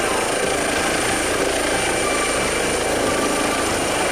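Eurocopter EC135 air ambulance helicopter lifting off and climbing: a steady high turbine whine over the noise of the main rotor.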